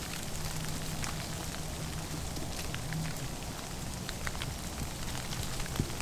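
Falling wet snow pattering on dry leaves and branches: a steady soft hiss with many small scattered ticks, over a faint low hum.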